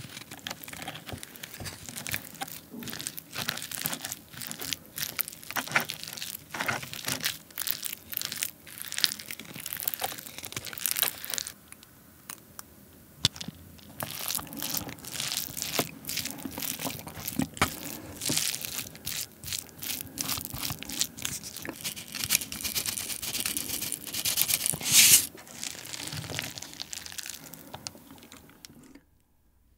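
Wooden spoon mixing crab-innard paste into rice on a plate and crushing crisp fried seaweed chips into it: a dense, irregular run of crackles, crunches and spoon clicks. It goes quieter for a couple of seconds about twelve seconds in, and there is a louder crackling burst near the end.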